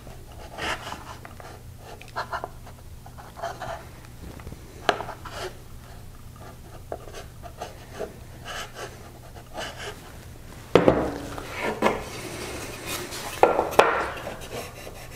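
A chisel plane scraping in short, separate strokes across oak, trimming a box corner that sits higher than the next face, then a louder run of continuous rasping strokes from about eleven seconds in.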